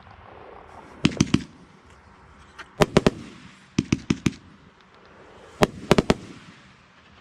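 Consumer fireworks cake firing: four quick clusters of three or four sharp bangs each, spaced roughly a second apart.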